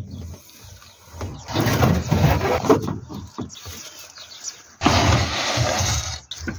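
Wooden building materials being pulled out of a car's boot. An MDF board is slid out first. About five seconds in comes the loudest sound: a wooden pallet dragged and scraped across the boot for about a second and a half.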